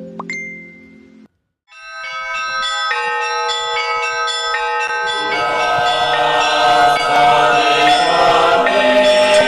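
Music soundtrack of bells struck one after another, each tone ringing on so that they pile up. About five seconds in, a fuller, denser layer joins and the music grows louder.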